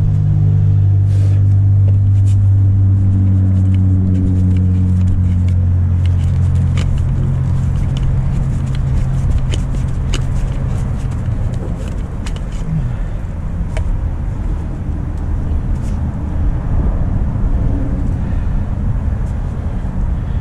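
An engine running steadily, with a low hum that fades out about seven seconds in and leaves a low rumble, plus scattered light clicks and knocks.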